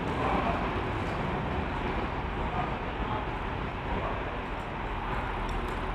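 Railway station ambience: a steady wash of background noise with faint, indistinct voices.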